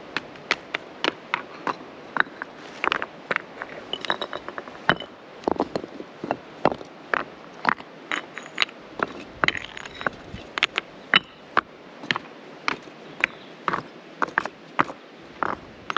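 Stones of a campfire ring clacking and knocking against each other as they are handled and set in place: a run of sharp knocks, a few a second.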